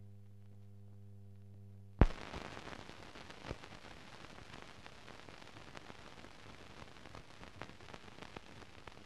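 Old newsreel film soundtrack: a steady low hum for about two seconds, then a sharp pop and a steady hiss with scattered crackles and clicks.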